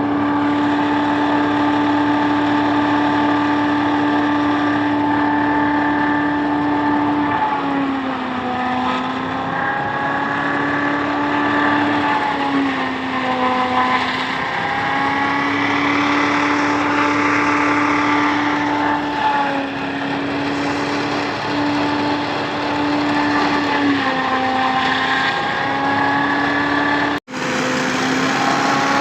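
Silage-making machine running with a steady pitched hum, its pitch sagging briefly several times under load and picking back up, with a rushing noise over it for a few seconds midway. The sound cuts out for an instant near the end.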